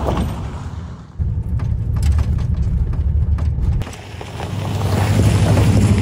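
Vehicle driving on a gravel forest road: a steady low rumble of engine and tyres that drops and returns abruptly twice, then builds louder toward the end.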